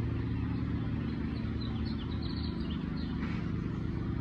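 A steady low mechanical drone, like a motor or engine running without change, with a few short high chirps about one and a half to two and a half seconds in.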